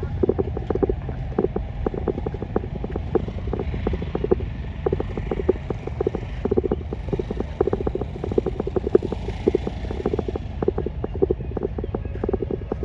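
Heavy rain falling, with many drops tapping sharply and irregularly close to the microphone over a steady low rumble.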